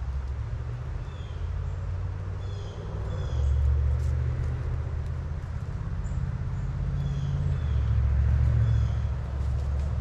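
Low rumble of passing road traffic that swells twice, about three and a half seconds in and again near eight seconds, with small birds giving short high chirps over it.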